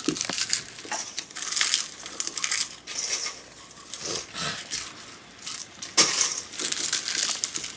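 Popcorn crunching and rustling in irregular bursts, louder about six seconds in.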